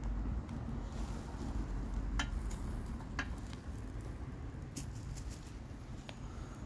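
Ribeye steak sizzling on a charcoal grill, with scattered sharp pops and clicks over a steady low rumble.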